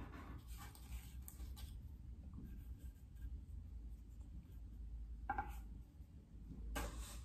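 Bristle paintbrush brushing and dabbing paint onto a sculpture's surface: faint, scratchy strokes now and then over a low room hum.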